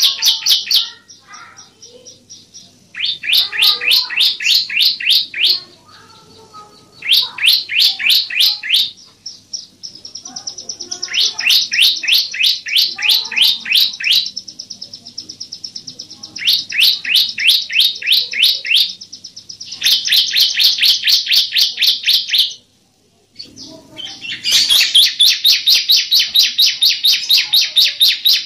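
Bar-winged prinia (ciblek) singing: phrase after phrase of rapid, evenly repeated high notes, about four or five a second, each phrase lasting two to three seconds with short pauses between.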